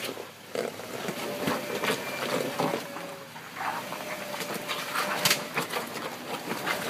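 Jeep Wrangler crawling up a muddy, rocky slope: a jumble of knocks and crunches from its big lugged tyres working over rock and mud. A thin steady whine comes in twice, for a couple of seconds each time.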